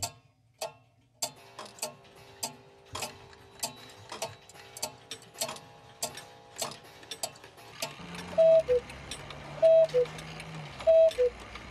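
Several mechanical clocks ticking at once, their ticks overlapping in an uneven patter. About two-thirds of the way in a cuckoo clock starts calling, its two-note falling cuckoo repeated three times at a steady pace.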